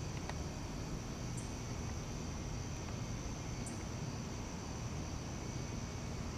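Crickets trilling: a steady high-pitched insect drone over a soft outdoor hiss, with a faint higher chirp every couple of seconds.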